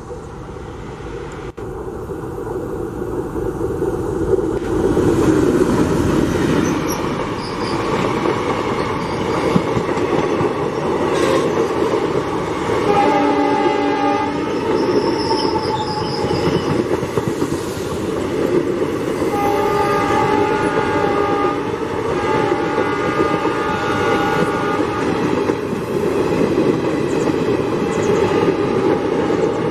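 WDG3A diesel locomotive running with its train, the engine and rail noise swelling over the first few seconds, then sounding its horn in long blasts a little before halfway and again a few seconds later.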